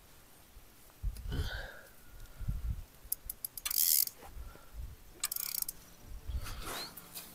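Handling noise from a carp rod and reel on a rod pod: a few sharp clicks and short scraping bursts, loudest about four seconds in, between low thumps.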